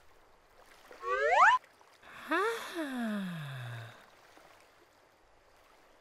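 Two cartoon character vocal sounds: a short rising call about a second in, then a long breathy sigh that falls steadily in pitch.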